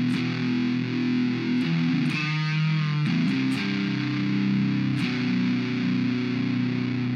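Electric guitar played through an Orange Fur Coat germanium-diode fuzz pedal, giving a distorted fuzz tone. Picked, sustained notes and chords change every second or so.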